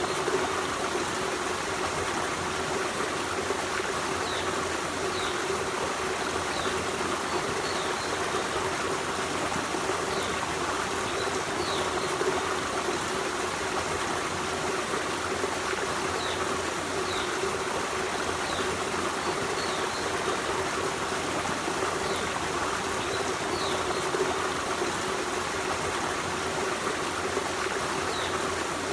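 Forest stream running steadily, water trickling and flowing over rocks. Faint short high chirps come every second or two.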